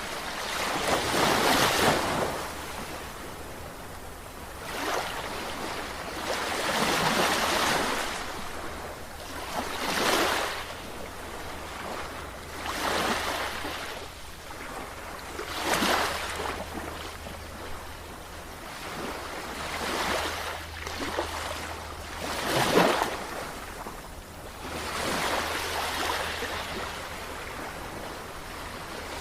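Sea waves washing in one after another, each rush of surf swelling and fading about every three seconds, some breaking more sharply than others.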